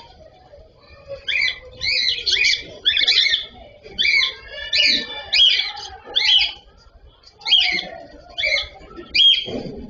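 Cockatiels chirping: a run of short, repeated shrill calls in quick clusters, with a brief lull partway through.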